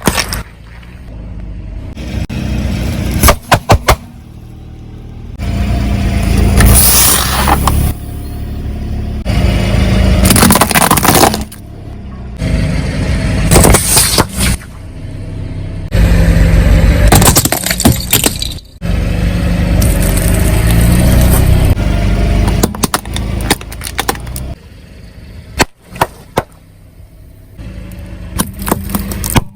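A car's tyres rolling over and crushing objects, in repeated loud stretches of crunching and crackling a few seconds long, with a few sharp pops and cracks.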